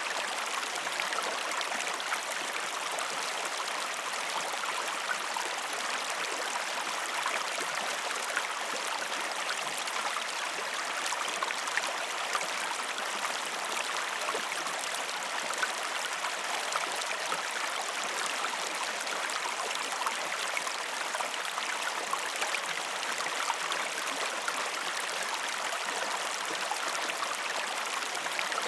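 Waterfall: water splashing and rushing steadily, an even hiss with fine splashy detail and no change in level.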